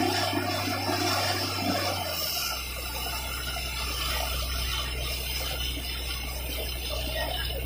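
Borewell drilling rig running steadily: a low engine and compressor drone with the hiss of compressed air blowing dust and water out of the bore. The drone drops in pitch about two seconds in.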